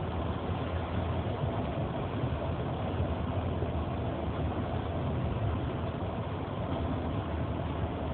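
Steady engine and road noise of a moving car, heard from inside the cabin, a constant low drone that does not change.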